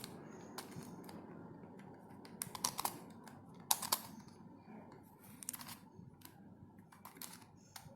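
Scattered plastic clicks and clacks of a corner-cut helicopter cube puzzle being twisted by hand through jumbling turns, pieces knocking as they rotate, over a faint hiss.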